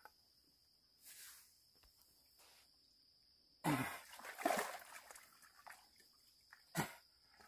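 A man's heavy, breathy exhalations and short grunts with a falling pitch, in bursts, as he strains in waist-to-neck-deep water to pull out a snapper jammed between submerged logs.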